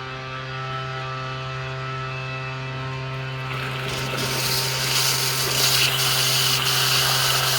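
Steady low hum with overtones throughout. From about halfway a broad hiss of rushing water builds up and grows louder, as the hose-fed water jet on the end of the PVC pipe cuts through the soil under the concrete.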